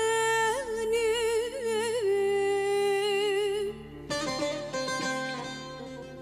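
A woman's voice holds long wavering notes of a Turkish folk song over a plucked-string accompaniment. Just under four seconds in, the voice stops and the instruments carry on alone, more quietly.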